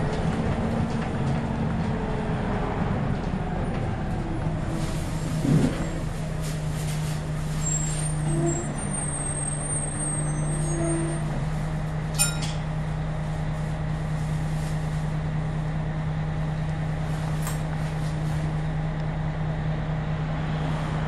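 Scania L113CRL bus's rear-mounted 11-litre six-cylinder diesel running while the bus is under way, heard from inside the passenger saloon. A steady engine drone settles in about six seconds in, with a couple of brief clunks along the way.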